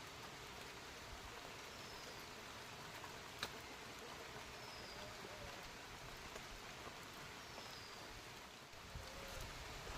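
Faint steady hiss like light rain, with a short high falling whistle every two to three seconds and one sharp click about three and a half seconds in.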